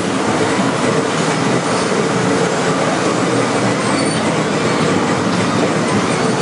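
Ghost-train ride car running along its track: a steady, loud rolling rumble with a few brief high wheel squeals.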